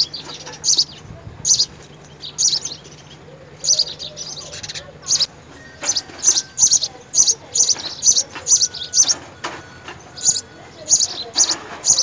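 House sparrows chirping: short, high chirps repeated two or three times a second, with a couple of brief pauses.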